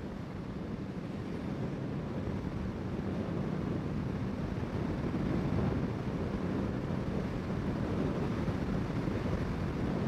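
Honda CBR650R's inline-four engine running at cruising speed under the rush of wind, growing gradually louder.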